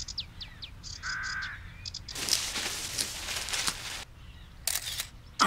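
Cartoon bird calls: a few quick falling chirps, then a short harsher call, followed by a rustling noise and two short sharp sounds near the end.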